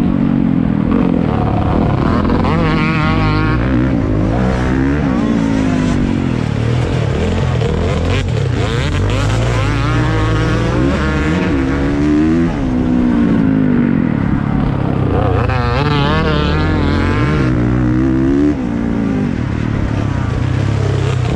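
Motocross bike engine racing hard, its pitch climbing and falling again and again as the throttle is opened and shut.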